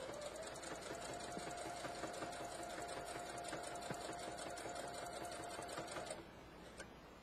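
Home sewing machine stitching a row of twin-needle pintucks, its motor picking up speed slightly at the start and then running steadily. It stops abruptly about six seconds in, followed by a single click.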